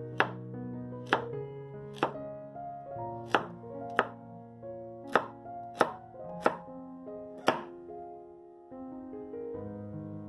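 Chef's knife chopping carrots on a bamboo cutting board: nine sharp knocks of the blade striking the board, about a second apart, stopping about three-quarters of the way through. Background music plays underneath.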